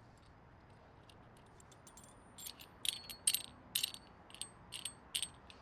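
Light metallic clinks and jingles, irregular and about two a second, beginning a couple of seconds in. They are metal tools or parts being handled.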